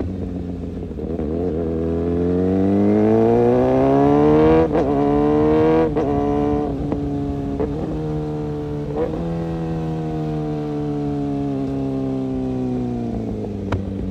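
Kawasaki ZX-6R inline-four sport-bike engine under way: the note climbs steadily as it accelerates, breaks sharply at gear changes about five and six seconds in, then sinks slowly as the bike eases off, with a few short breaks, and picks up again near the end.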